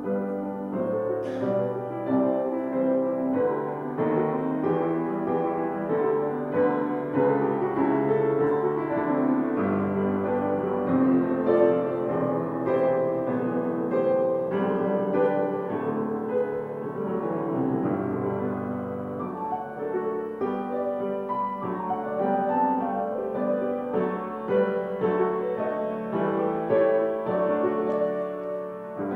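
Piano or keyboard playing a steady stream of chords and melody, with no voices.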